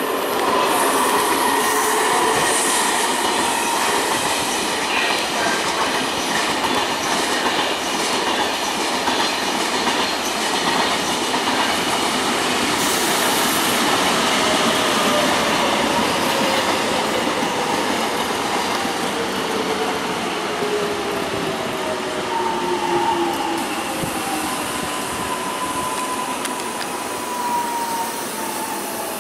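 Korail Line 1 ten-car electric commuter train running past, with a steady rumble of wheels on rail and faint tones that fall slowly in pitch.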